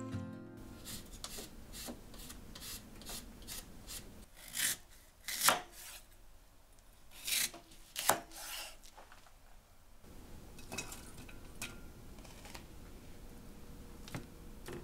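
Kitchen knife slicing through a Korean radish on a wooden cutting board: a run of crisp cuts, each ending in a knock of the blade on the wood, several of them much louder in the middle. Later come only a few soft knocks as the radish pieces are handled.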